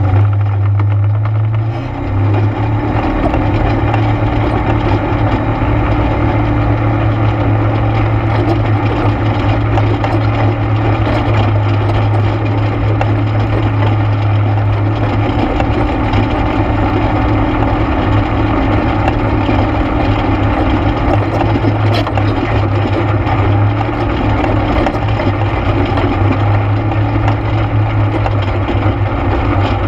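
ATV engine running steadily under way, with a brief dip about two seconds in.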